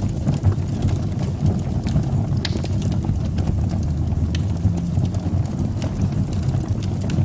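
Fire burning in a fireplace: a steady low rumble with scattered sharp crackles and pops.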